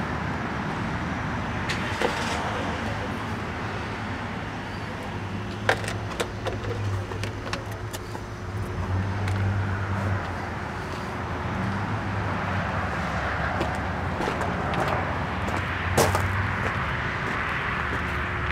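Steady motor-vehicle rumble with a low hum that swells and fades, and a few sharp clicks.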